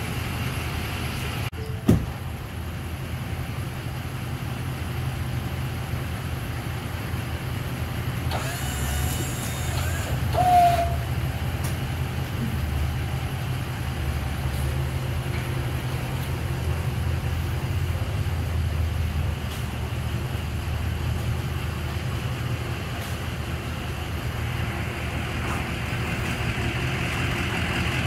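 Pickup truck engine idling steadily. There is a single click about two seconds in and a short chirp around the middle.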